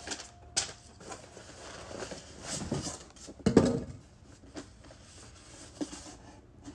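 Cardboard shipping box being opened and handled: scattered rustling and scraping of cardboard and packing, with a louder thump about three and a half seconds in.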